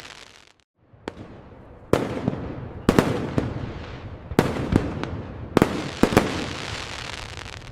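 Fireworks display: aerial shells bursting in a series of about eight sharp bangs, each followed by a fading crackle, with a dense run of crackling after the last bangs. The sound drops out briefly about half a second in.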